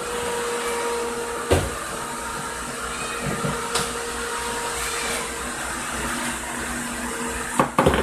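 Steady whirring of a motor-driven fan with a low hum. There is a sharp knock about a second and a half in, and a few more knocks near the end.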